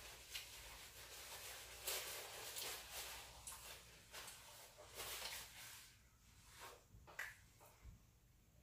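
Close-miked eating sounds: chewing with soft wet clicks and smacks, busier for the first six seconds and thinning out near the end.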